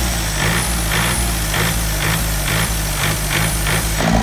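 Yanmar US45 tractor's diesel engine running, with a rhythmic knock about twice a second that quickens toward the end. The engine blows white smoke, which the mechanic puts down to a sticking injector.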